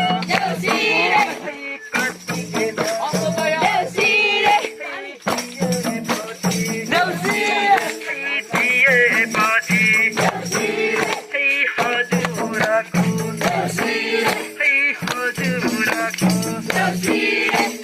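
Nepali deusi-bhailo song: voices singing a wavering melody over a steady low accompaniment and quick, dense percussion hits.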